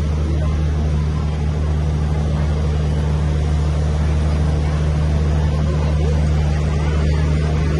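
A steady, loud, low mechanical drone, like an engine or motor running continuously without change.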